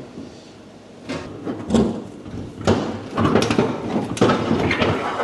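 Sheet-metal car body parts clanking and scraping in a quick run of knocks and rubs that starts about a second in, as a front-end panel is worked loose.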